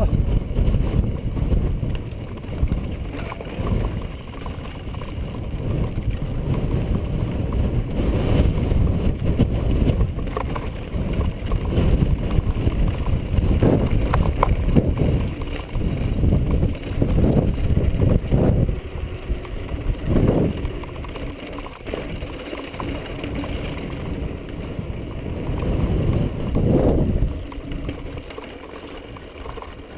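Wind buffeting the microphone of a handlebar-mounted action camera as a mountain bike rolls fast down a rough, sandy trail, with scattered knocks and rattles from the bike over bumps through the middle.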